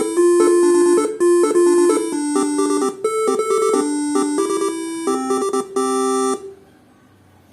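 Basuri telolet air horns, switched by a Faniatech R3 module, playing a quick tune of short stepped notes, often two pitches sounding together. The tune stops about six seconds in.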